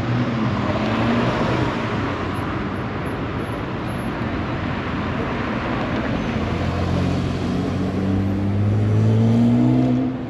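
Porsche 911 sports car engine accelerating, its pitch rising and growing loudest near the end before falling away, over steady city traffic noise.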